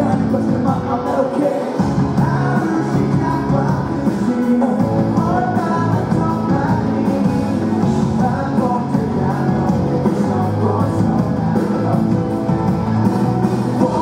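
Live rock band music: electric bass, drums and guitars under a sung lead vocal, played through the venue's sound system.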